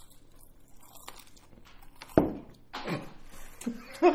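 A person's voice makes two short, low sounds that fall in pitch, the first sudden and loudest a little over two seconds in, the second about half a second later; laughter begins at the very end.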